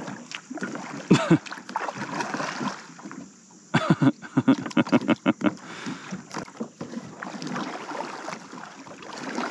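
Kayak paddle splashing and knocking against a kayak's hull as the stuck boat is rocked and paddled to free it from a stump, with a quick run of sharp knocks about four seconds in.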